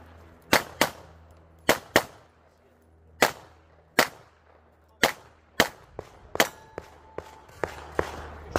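A competitor's pistol fired in a rapid string of about a dozen shots, mostly in quick pairs (two shots per target) with short pauses between, the last few weaker.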